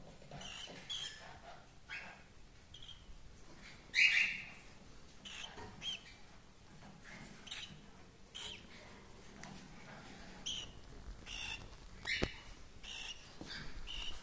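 Cockatiels giving short chirps at irregular intervals, the loudest about four seconds in. A single sharp click sounds just after twelve seconds.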